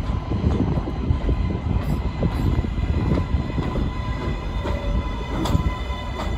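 New York City Subway L train pulling into the station: a loud, steady rumble of wheels on the rails with a steady high whine over it, and a few sharp clicks scattered through.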